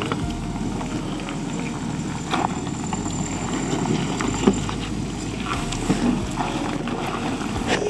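Off-road 4x4's engine running at low speed over a rocky trail, with a few short knocks or scrapes.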